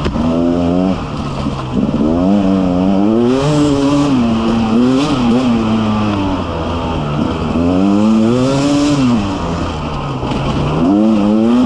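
Beta 300 RR two-stroke enduro motorcycle engine on the move, its revs climbing and dropping back again and again under changing throttle.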